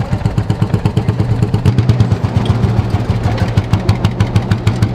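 Vintage tractor engine running with a loud, even, rapid beat.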